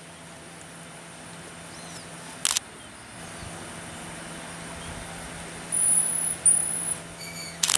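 Micos (small marmoset monkeys) giving two short, high whistling calls a little past the middle, the second slightly falling, over a steady faint hum. A sharp click sounds about two and a half seconds in and another near the end.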